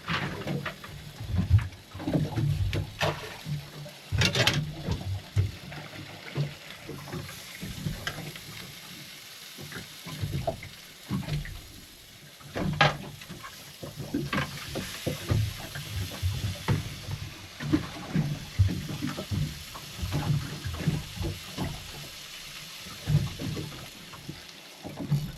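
Small waves slapping and knocking against a small boat's hull, in an irregular run of low thumps with a few sharper knocks.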